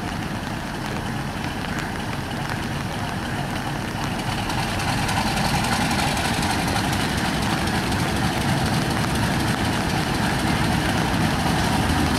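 Broad-gauge diesel locomotive's engine running as the train rolls slowly in, growing louder about halfway through as it draws near.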